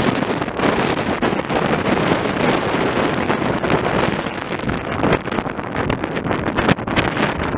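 Wind buffeting the microphone: a loud, unsteady rush of noise that rises and falls in gusts.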